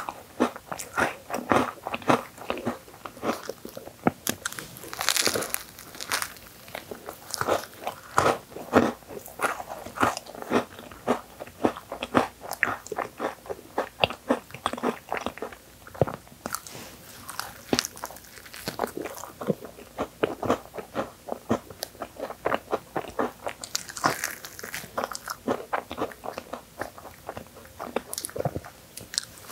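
Crunchy bites and chewing of an Oreo whipped-cream crepe rolled into a cone: many irregular crisp crackles with wet, soft chewing between them.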